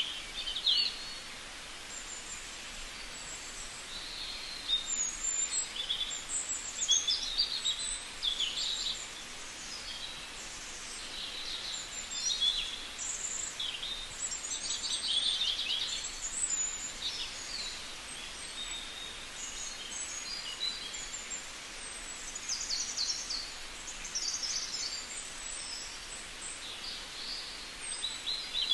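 Many short, high-pitched chirps and trills, some rising and some falling, over a steady background hiss.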